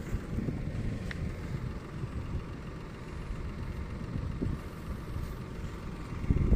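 Off-road 4x4 vehicle engine running with a steady low rumble.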